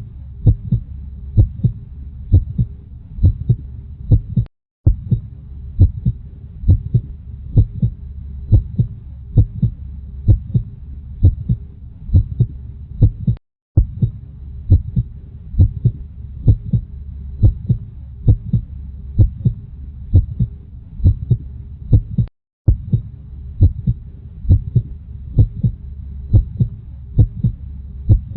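Heartbeat: a steady rhythm of low thumps over a low hum, cut by three brief silent gaps about nine seconds apart where the recording loops.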